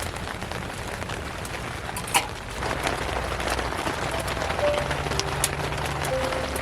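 Steady rain falling, an even hiss throughout, with one sharp tap a little over two seconds in.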